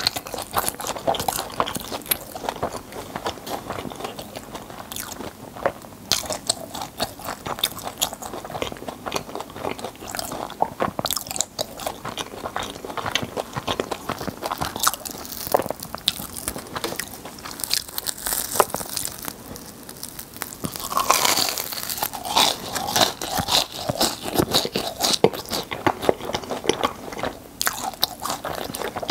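Close-miked crunching and chewing of a crisp fried churro, with dense, rapid crackles of the crust breaking between the teeth. A louder stretch of crunching comes about three-quarters of the way through.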